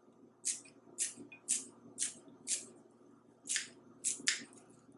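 Kitchen shears snipping fresh green onion, about eight short snips roughly two a second, with a pause of about a second near the middle.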